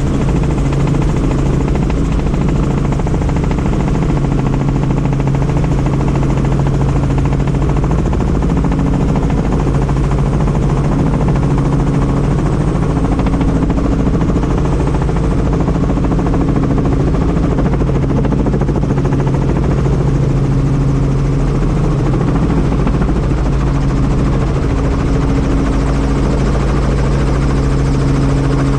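Helicopter in flight heard from on board: a loud, steady drone of rotor and engine with a low, even hum that does not change.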